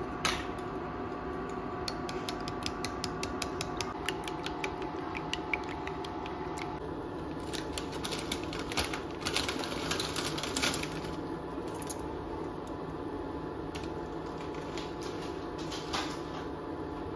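A fork or chopsticks beating raw eggs in a glass bowl: quick light clicks, about five a second, over a steady hum that stops about four seconds in. A denser burst of rustling clatter follows in the middle, then a few scattered clicks.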